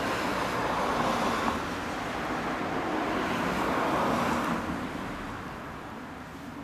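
Harley-Davidson V-Rod's 1250 Revolution V-twin running through its exhaust, swelling twice in level, then dropping off over the last two seconds.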